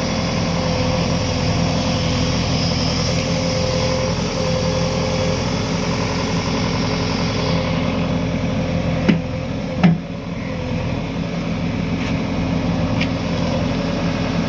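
JCB 3DX backhoe loader's diesel engine running steadily. About two-thirds of the way through, two sharp knocks come less than a second apart.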